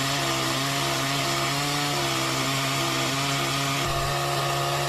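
Petrol chainsaw running steadily at full throttle as it cuts through a log under its own weight.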